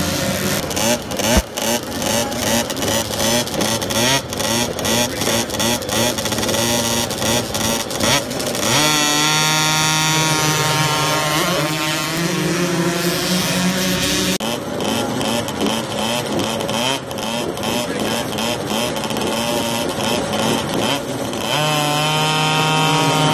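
Engines of 50cc mini dirt bikes revving hard as they launch off a motocross starting gate and pull away, in a string of short clips. Some stretches pulse quickly and unevenly, others hold a steady high note. There is a sharp knock about a second and a half in.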